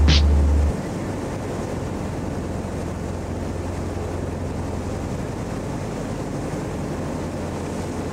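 Steady hum of a fjord boat's engine with an even wash of wind and water noise; a music track cuts off under a second in.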